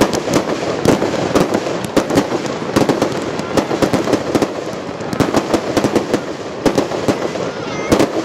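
Aerial fireworks going off in quick succession: a dense run of sharp bangs, several a second, over continuous crackling.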